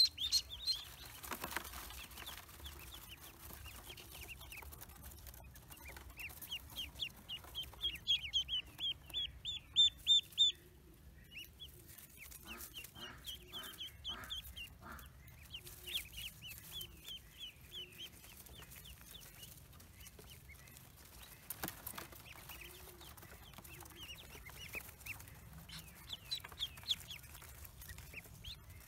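Pekin ducklings peeping in quick runs of short, high calls that come in several bouts. A short series of lower, evenly repeated calls comes about halfway through.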